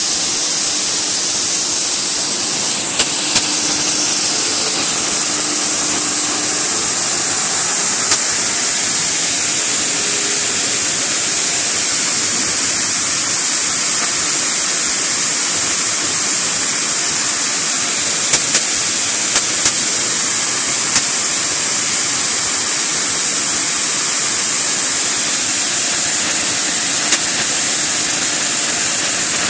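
Plastic film pelletizing line running: a loud steady hiss of machinery, with a few sharp ticks now and then.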